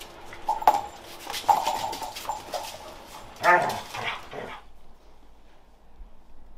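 Pet dogs whining and barking in short pitched cries, eager for a ball held up in front of them; the strongest cry comes about three and a half seconds in, and the sounds stop about four and a half seconds in.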